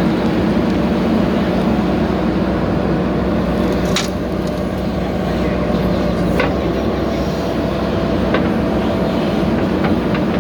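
A JCB backhoe loader's diesel engine running steadily under work, with a few sharp knocks about four, six and eight seconds in.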